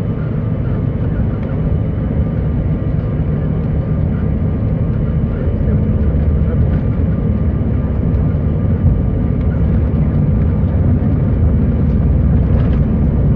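Jet engine noise heard inside the cabin of a CRJ1000 regional jet rolling on the runway: a heavy low rumble with a faint steady whine, gradually getting louder. The sound comes from the aircraft's two rear-mounted General Electric CF34 turbofans.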